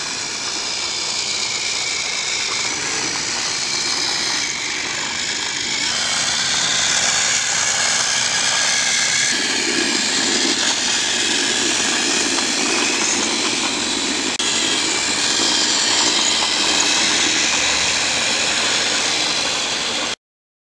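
Battery-powered TOMY Trackmaster toy trains running on plastic track, their small electric motors and gears giving a steady whirring noise. It stops abruptly near the end.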